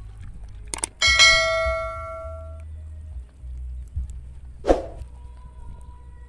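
A single metallic strike about a second in that rings out like a bell for about a second and a half. Short sharp knocks come just before it and again about four and a half seconds in.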